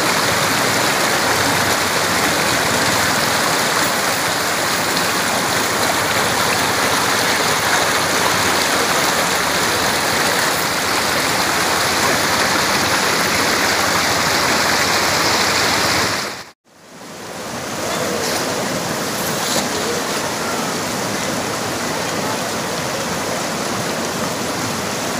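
Shallow river rushing over boulders in rapids: a loud, steady rush of water. It cuts out abruptly about two-thirds of the way through, then fades back in a little quieter.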